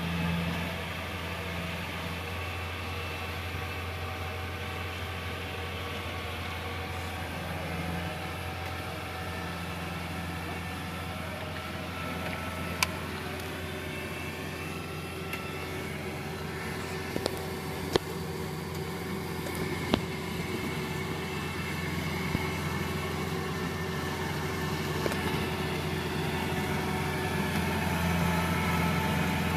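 Kubota DC70 combine harvester's diesel engine running steadily as the tracked machine crawls through the mud, getting louder near the end as it comes closer. A few sharp clicks or knocks sound around the middle.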